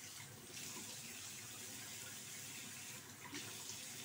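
Bathroom sink faucet running in a steady stream while a wet puppy is rinsed under it, the water spilling off the dog into the basin.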